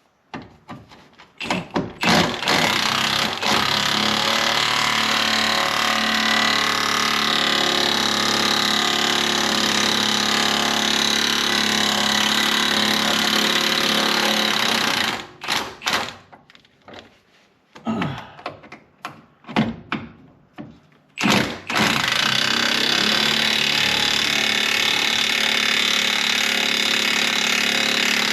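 Impact wrench hammering at a stubborn, rust-seized skid plate bolt in two long runs, with a few seconds of knocks and clanks between them.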